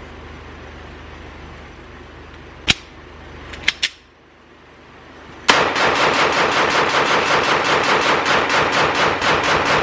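Glock 43X 9 mm pistol fired as fast as the trigger can be pulled from a 50-round Pro Mag drum magazine, a mag dump of about six shots a second that starts suddenly about five and a half seconds in and keeps going. A few sharp clacks come before it.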